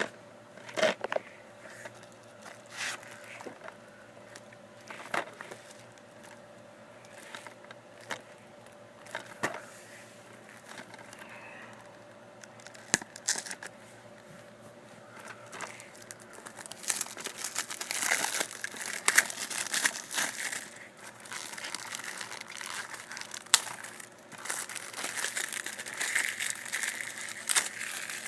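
Plastic shrink-wrap on a DVD case being picked at, torn and crinkled off: scattered clicks and crackles at first, then steadier crinkling from a little past halfway.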